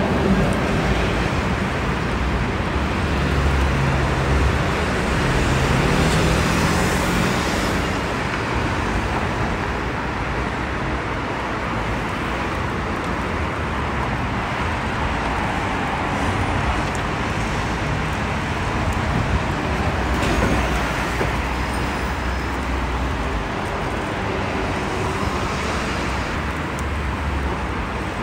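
Street traffic: an articulated city bus's engine running close by, rising in pitch over the first several seconds as it pulls away, over steady road noise from passing cars.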